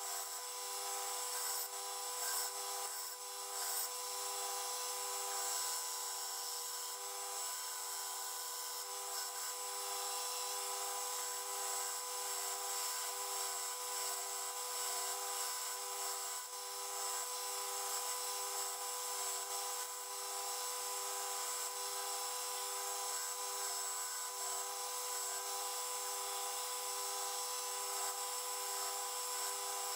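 Benchtop belt sander running steadily while a wooden axe handle is pressed against its abrasive belt and shaped: a steady motor hum with a slight regular pulse under the even hiss of the belt sanding the wood.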